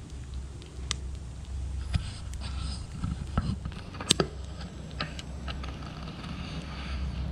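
Steady wind rumble on the microphone, with scattered sharp clicks and crackles from the small stick fire burning in the aluminium-can stove; the loudest click comes a little past halfway.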